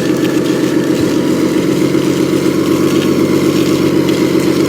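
Vehicle engine idling steadily, a low, even hum with a fast, regular pulse.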